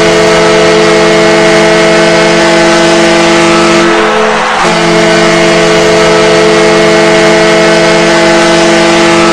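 Ice hockey arena goal horn sounding a loud, steady chord of several pitches over a dense wash of noise. It breaks off for about half a second about four seconds in, then sounds again.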